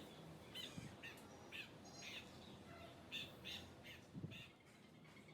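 Faint bird calls: short chirps repeated every fraction of a second, thinning out after about four seconds, with a soft low knock about four seconds in.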